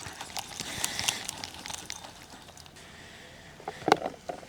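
A shoal of river fish splashing at the water surface as they feed frantically on loose-fed maggots, busiest in the first two seconds and then dying down, with one sharp knock near the end.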